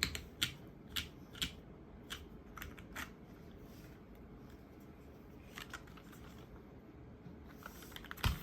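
Single key presses on a custom mechanical keyboard with lubed Cherry MX Hyperglide Black linear switches in an aluminium plate and polycarbonate case. The strokes are sparse: about six in the first three seconds and a few more past the middle, with quiet pauses between. Near the end one louder, deeper key press lands, and rapid typing begins.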